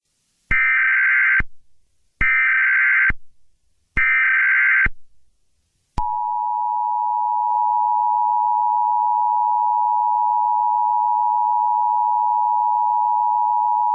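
Emergency Alert System broadcast tones: three short, identical bursts of warbling SAME header data tones, then, from about six seconds in, the steady two-tone EAS attention signal holding one unchanging chord.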